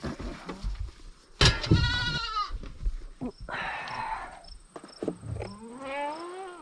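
Goats bleating: a loud bleat about a second and a half in, a hoarser call in the middle, and another bleat rising in pitch near the end.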